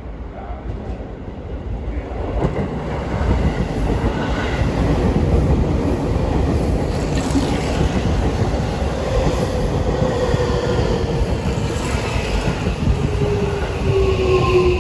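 Seibu Railway electric train running on the rails, getting louder over the first few seconds and then holding steady. Near the end a whine slides down in pitch.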